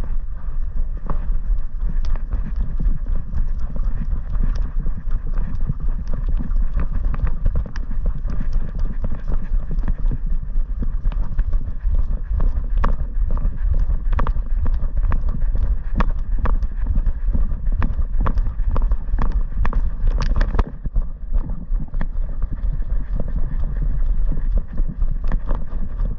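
Jolting, rumbling noise from a camera mounted on a running Weimaraner's back: the dog's strides on the grass and the mount knocking, with many rapid clicks. About twenty seconds in the clicks thin out and the noise drops a little as the dog eases off.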